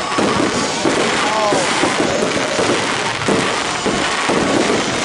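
Fireworks going off in a rapid, continuous string of pops and crackles.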